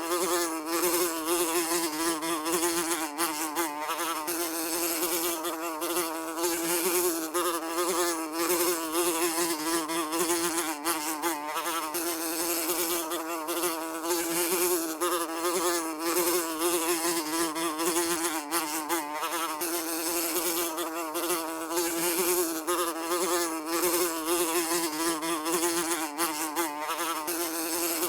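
Housefly buzzing continuously, a steady drone with a wavering pitch near 300 Hz as its wings beat.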